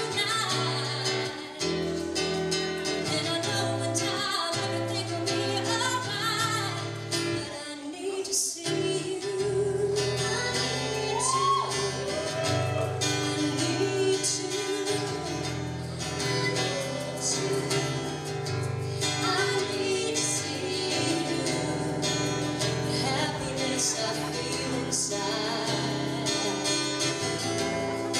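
Live song: a woman singing with a strummed acoustic guitar accompaniment.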